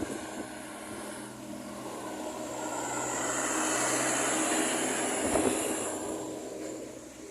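Large bus driving past, its engine and tyre noise swelling to a peak about four to five seconds in and then fading, with a steady hiss high up. No horn melody.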